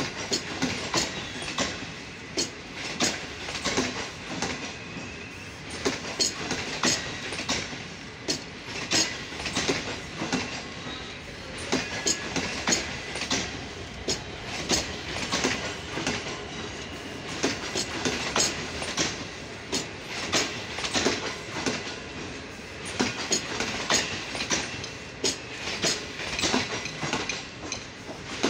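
Passenger coaches of an arriving express train rolling past, their wheels clicking and clattering over rail joints in a continuous, uneven run of clicks.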